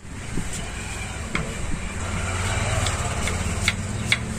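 A motor vehicle's engine running close by in the street, its steady hum growing stronger about halfway through, with a few sharp clicks on top.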